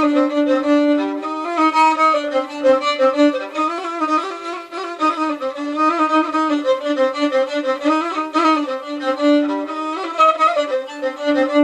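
Violin held upright in the Moroccan chaabi way, bowing a fast ornamented 'alwa phrase in maqam bayati with quick finger flicks from mi down to re, coming to do for the answer and ending on a long held note.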